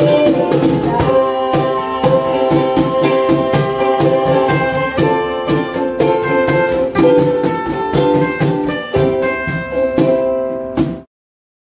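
Acoustic guitar, ukulele and cajón playing together without vocals: steady cajón strokes under strummed guitar and ukulele chords. The music stops abruptly near the end.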